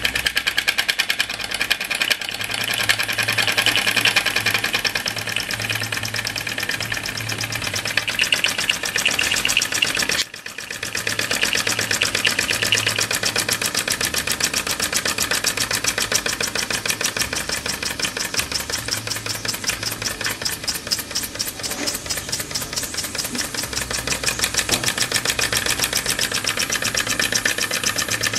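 Early flat-base Mamod SE1 toy steam engine running under steam: its small brass oscillating cylinder chuffs in a rapid, even rhythm as the flywheel spins. The beat dips briefly about ten seconds in, then carries on steadily.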